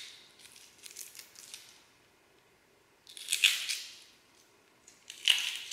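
Hard-boiled eggshell crackling as it is peeled off by hand, with light crackles in the first two seconds and two louder crunching bursts about three and five seconds in.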